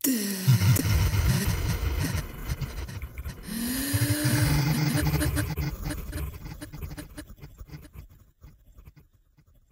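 Experimental electronic music built from processed breath and voice sounds: a low pitch sliding down as it starts, low throbbing pulses under a hissy high layer, and a tone that swoops up and down about halfway through, fading out near the end.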